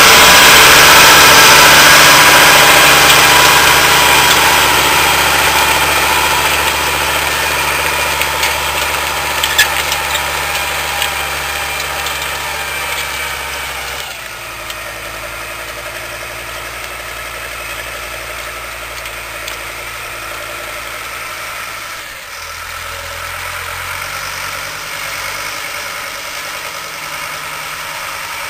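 Same Laser 100 tractor engine running steadily under load while pulling a disc plough through dry soil, loud up close at first and fading as the tractor draws away.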